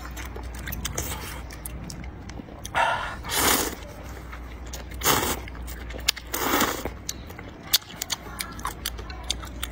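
A person slurping rice noodles out of broth from a bowl, with three long slurps about three, five and six and a half seconds in, and wet chewing and smacking clicks between them.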